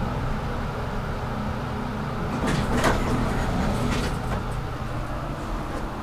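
Otis traction elevator car running with a steady low hum, then a cluster of clunks and clicks a little over two seconds in as it stops at the floor and its sliding doors open.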